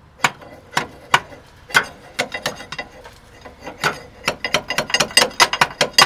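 Sharp metal taps on the gear-reduction starter of a 6.6 L Duramax diesel, struck while the key is held in the crank position: a few spaced strikes, then a quick run of taps from about four seconds in. The engine does not crank, which is the sign of a bad starter.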